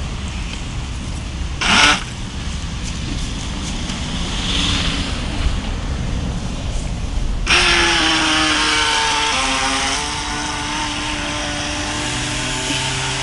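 The small twin motors of a radio-controlled toy speedboat start whining sharply about seven and a half seconds in, as the boat takes off at speed, their pitch stepping up and down as it runs and turns. Before that there is only a low rumble, with one short loud burst near two seconds in.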